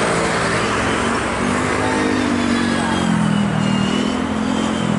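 Boeing 777-200 jet engines running at taxi power: a steady rushing with a faint high whine that slowly falls in pitch, under a lower engine hum that wavers in pitch.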